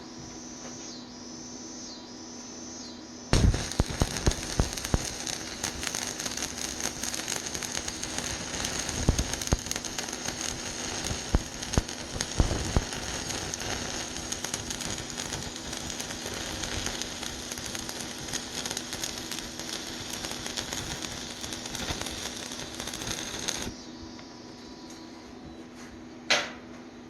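Stick-welding arc from an Everlast PowerArc 140ST running a 3/32" rod at 75 amps on rusted steel pipe: a dense crackle with sharp pops that strikes up a few seconds in, runs for about twenty seconds and cuts off abruptly. A steady hum runs underneath, and one short sharp tick comes near the end.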